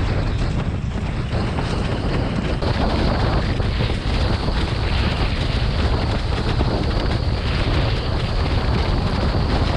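Strong wind rushing over the microphone, mixed with water rushing and splashing, while sailing a windsurf board in high wind. It stays steady and loud throughout, with a heavy low rumble.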